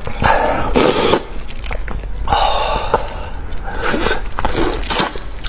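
Close-miked eating noises from a fish head: irregular wet slurping, sucking and chewing, with a few sharp smacks and clicks.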